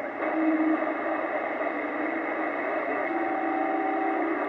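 Lafayette HB-600 CB radio receiver giving out band noise (static) from its speaker as the channel selector is stepped from one channel to the next. Steady whistling tones come and go in the noise, one early on and a pair of them about three seconds in.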